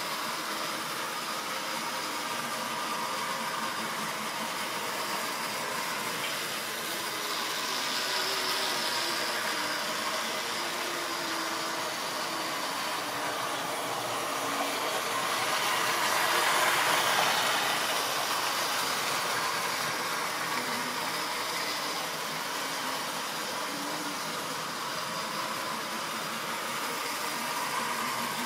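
Electric OO-gauge model train running along the track: a steady motor whir and wheel noise on the rails, growing louder in the middle as the train passes close by.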